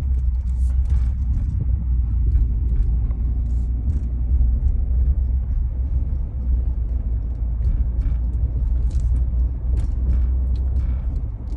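Steady low road rumble of a car driving slowly, heard from inside the cabin, with scattered faint ticks and clicks.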